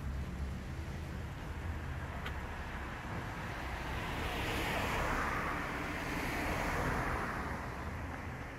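A road vehicle passing by: its noise swells about four seconds in and fades near the end, over a steady low rumble.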